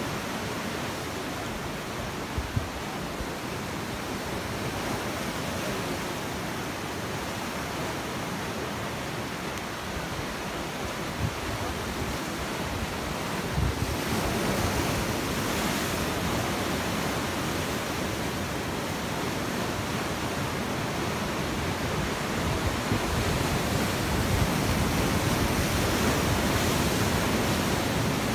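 Sea waves breaking and washing over shoreline rocks: a continuous rush of surf and foaming water that grows louder about halfway through, with a few brief low thumps of wind on the microphone.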